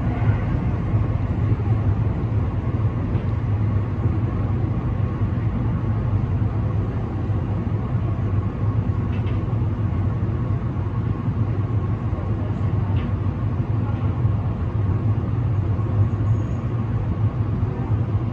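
Meitetsu 3500 series electric commuter train running and slowing into a station, heard from inside the front of the train: a steady low rumble of wheels on rail with a faint steady whine above it and a few faint clicks.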